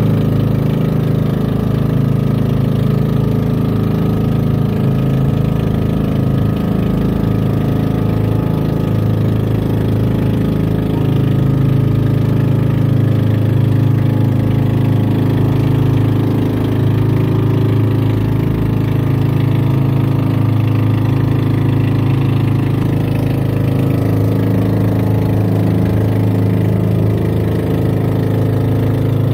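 Outrigger boat's engine running steadily with the boat under way: a loud, even drone with a strong low hum.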